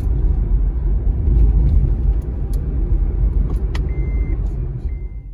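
Vehicle on the move: a steady low rumble of engine and road noise that eases off near the end, with two short high beeps in the last second and a half.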